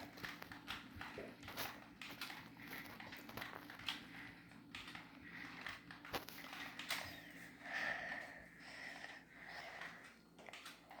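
Faint room noise: a steady low hum with irregular small clicks and rustles scattered through it.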